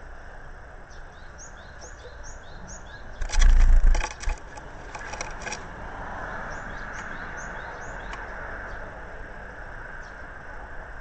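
A Japanese tit enters the wooden nest box about three seconds in: a brief loud burst of wing flaps, claw scrabbling and thumps against the wood. This is followed by rustling as it works the cat fur into the nest. A small bird gives runs of short, high chirps twice, before and after the entry.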